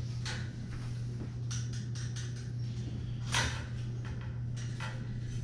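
Scattered light clicks and knocks of a bicycle rear wheel being worked free of the frame, with one sharper knock about three and a half seconds in, over a steady low hum.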